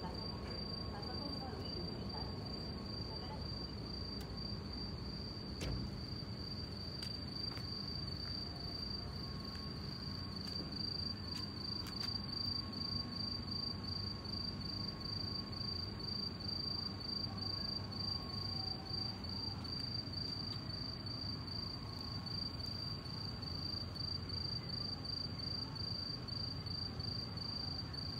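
Cricket chirping in a steady, high-pitched, evenly pulsing trill, over a low rumble of background street noise.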